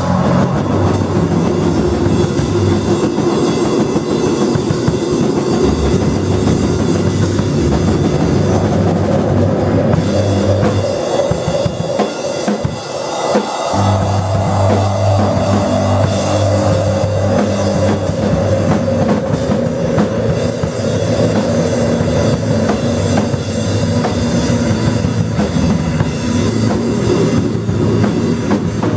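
A live noise-rock band playing loud, with a drum kit and dense, noisy instruments; the low bass drops out for a couple of seconds near the middle and then comes back.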